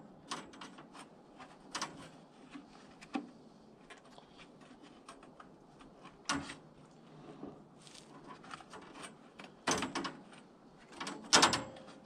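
Scattered metallic clicks, clanks and knocks as a new steel band saw blade is handled and worked onto the band wheels of a Woodland Mills HM130MAX sawmill. The loudest two knocks come near the end.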